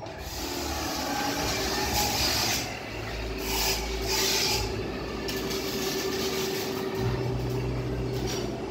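Steady mechanical noise: a constant mid-pitched hum under a rushing sound and a low rumble, with brief louder surges of hiss a few times.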